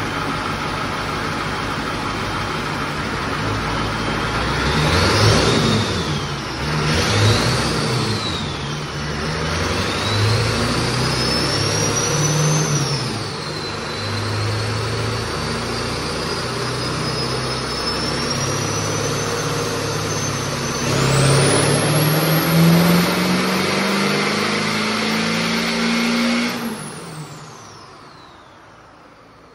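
Turbocharged 7.3 IDI diesel V8 of a 1988 Ford pickup on a chassis dyno: two quick revs with the turbo whistle rising and falling, then a long dyno pull with engine speed and the turbo whine climbing steadily. About 26 seconds in the throttle is lifted, the engine drops away and the turbo whistle winds down.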